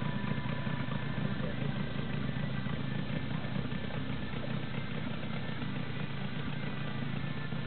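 Yamaha outboard motor running steadily, with an even drone and no change in speed.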